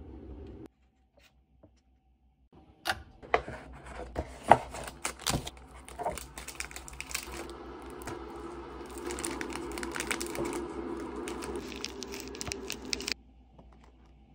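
Plastic seasoning packets from a cup ramen being torn open and handled. First comes a run of sharp rips and crinkles, then steadier rustling that stops abruptly near the end.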